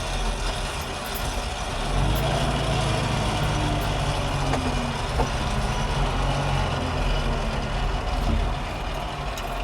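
Landini Blizzard 65 tractor's turbocharged diesel engine running steadily while the tractor travels on the road, heard from inside the cab; it gets a little louder about two seconds in.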